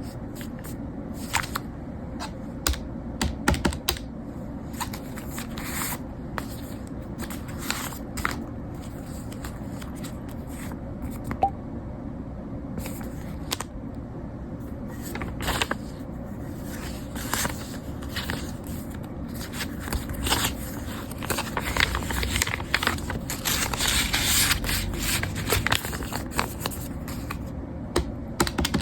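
Hands handling small objects and paper at close range: a run of light clicks, taps and rustling scrapes, growing busier toward the end.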